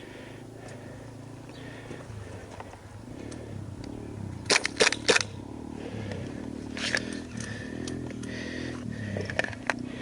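Airsoft gun fire: a quick run of four sharp snaps about halfway through, then a few single snaps, over a steady low rustle of movement.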